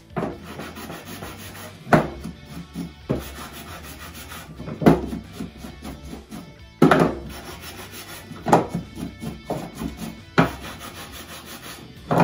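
Hand sanding block rubbing back and forth along the edges of wooden boards to take off their sharp, rough edges, a steady scratchy rasp. Sharp knocks every second or two, the loudest sounds, as the wood is handled on the table.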